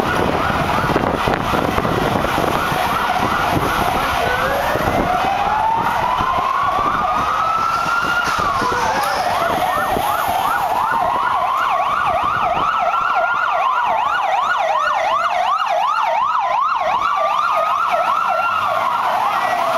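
Several Mossos d'Esquadra police van sirens sounding at once: a fast warbling yelp throughout, overlapped from a few seconds in by a slow wail that rises over about four seconds and drops quickly, three times. Vehicle engine and street noise run under it, heaviest in the first few seconds.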